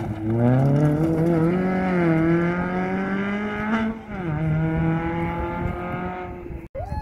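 Rally car engine revving hard as the car powers out of a gravel corner and away. The pitch climbs for about four seconds, drops sharply at an upshift, then climbs again and fades as the car goes off.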